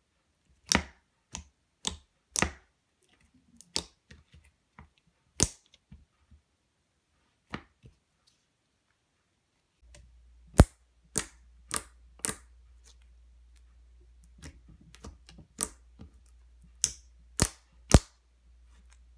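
Clear glue-based glitter slime being stretched and squished by hand, giving irregular sharp wet clicks and pops. About ten seconds in it is worked flat on a tabletop, with louder slaps and pokes, the sharpest smacks near the end.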